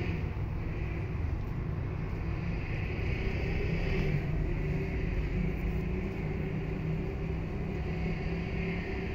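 Steady low mechanical rumble with a faint hum, with a hiss that swells about four seconds in and again near the end.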